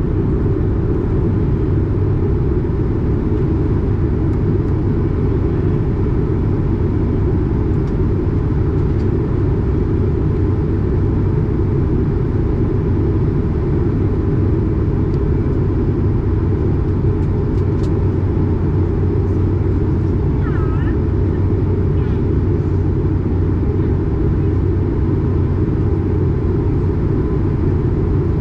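Steady in-flight cabin noise of an Airbus A220 heard beside the wing: a constant low rumble from its Pratt & Whitney PW1500G geared turbofan engines and the airflow, with a steady low hum underneath.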